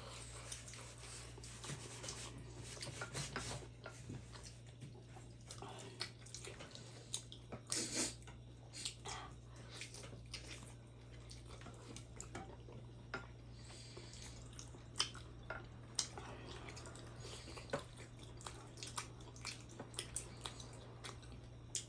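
Close-mic eating sounds of steamed chicken momos being chewed: wet smacks, squelches and sharp mouth clicks coming irregularly, over a steady low hum.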